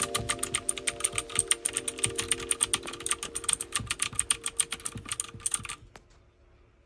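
Fast typing on an HXSJ V800 68-key mechanical keyboard: a dense, rapid clatter of key switches that stops abruptly about six seconds in.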